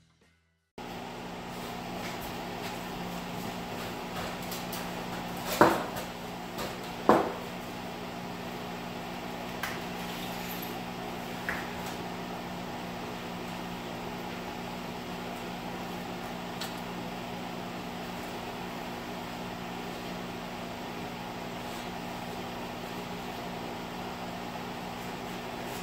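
Fan of a homemade ceiling-mounted air filtering unit running with a steady hum. Two knocks come about six and seven seconds in, and a few lighter clicks follow, as the filters in the unit are handled.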